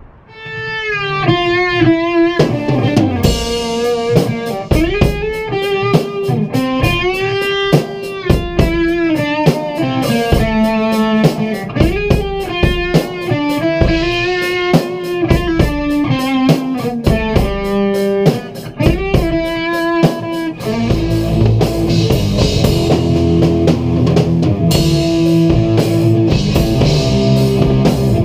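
A band jamming on electric guitar and drum kit: the guitar plays a sustained lead melody with bending notes over a steady drum beat. About twenty seconds in it gets louder and denser, with cymbals and chords.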